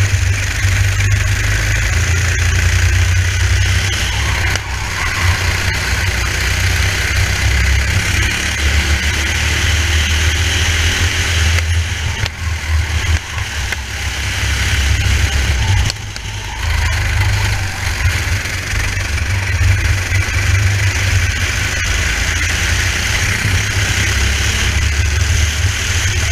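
Racing kart engine running on track, with heavy wind rush on the helmet-mounted microphone. The sound eases off briefly twice, about twelve and sixteen seconds in.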